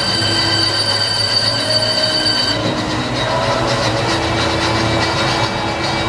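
Automated metal-machining machine running while cutting a metal furniture-handle part, with a steady high-pitched squeal from the cutting. About two and a half seconds in the high squeal drops away, leaving a lower steady hum and the running noise.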